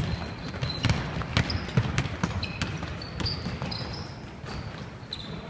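Basketball bouncing on a hardwood gym floor as a player dribbles up the court, the bounces coming about every half second and fading in the second half. Players' sneakers make short high squeaks on the floor.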